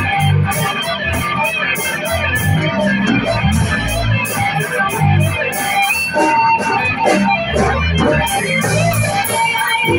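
Rock band playing live at a loud, steady level: distorted electric guitars over a bass guitar and drums, with regular cymbal strokes.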